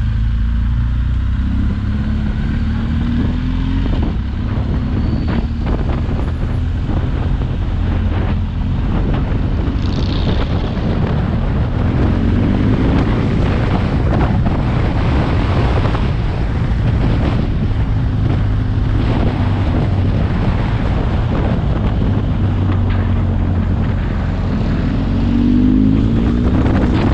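Motorcycle engine running under way, with wind rushing over the microphone; the engine note rises briefly a few times with the throttle, about a second in, around twelve seconds in and near the end.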